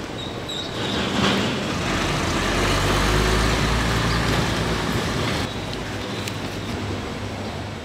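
Road traffic noise: a low vehicle rumble swells about two seconds in and eases off after about five seconds.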